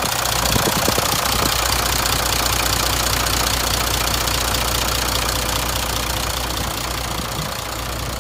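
Mitsubishi Fuso Fighter's 6D17 straight-six diesel idling steadily with the cab tilted open, growing a little fainter over the last few seconds.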